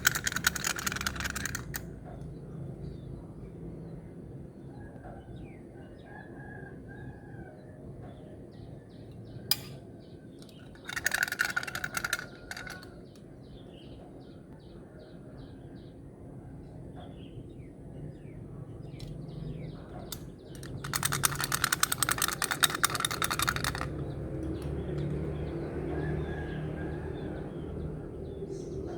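Beads poured into a little bucket, a dense rattle of clicks heard three times: at the start, about eleven seconds in, and for about three seconds past the twenty-second mark. Between the pours, birds chirp in the background.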